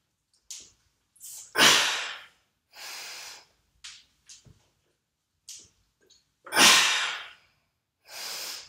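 A man breathing hard through barbell back squats: two loud, forceful breaths out about five seconds apart, one as he drives up out of each rep, each followed by a shorter, quieter breath in.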